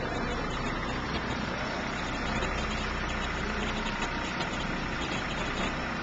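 Engines of a trailer-mounted concrete line pump and a concrete mixer truck running steadily.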